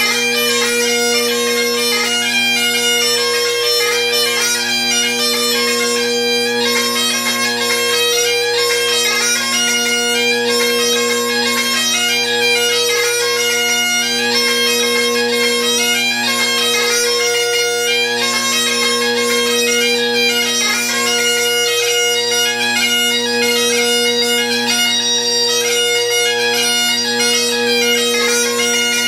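Great Highland bagpipe played solo: steady drones under the chanter playing a jig, without a break.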